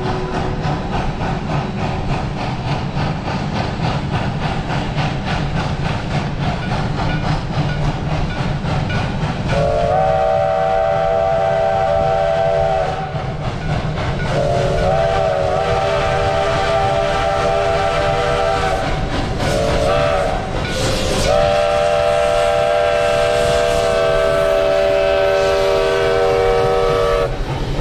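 Black Hills Central Railroad steam locomotive No. 108 approaching with a steady rhythm of exhaust chuffs, then sounding its chime whistle in four blasts: long, long, short, long, the grade-crossing signal. A brief hiss comes just before the last blast.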